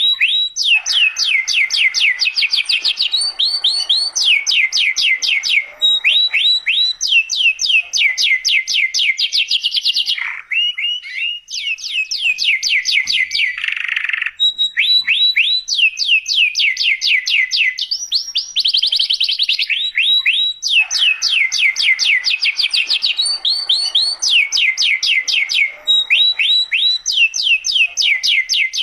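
Domestic canary singing a long song of fast trills: rapid runs of repeated down-sweeping notes, phrase after phrase with only brief breaks. It is the kind of tutor song (masteran) played to young canaries so they learn it.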